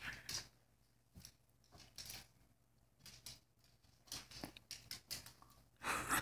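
Small dog scrabbling up against a kitchen stool toward the counter: a handful of faint, brief scuffing sounds roughly a second apart, with a longer, louder scuff near the end.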